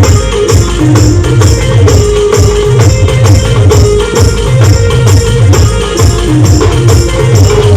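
Adivasi band music: a melody line over a steady, driving drum beat, with bright percussion strikes on the beat.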